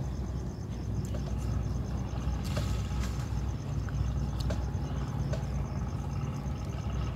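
Outdoor ambience: a steady low rumble, with a faint high tone pulsing evenly several times a second and a few light clicks.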